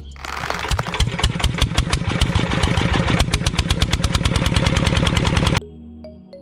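Small engine of a homemade mini tractor running, with rapid, even firing pulses. It cuts off abruptly near the end, and soft music follows.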